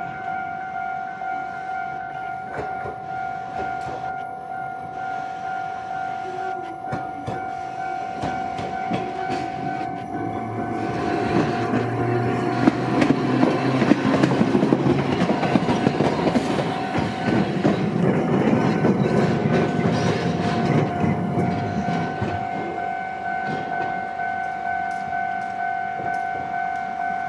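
A level-crossing warning bell rings steadily while an Iyotetsu Moha 50-type streetcar, car 54, approaches and passes close by. Its wheels rumble and clatter over rail joints and points, loudest for about ten seconds in the middle, then fading as it moves away.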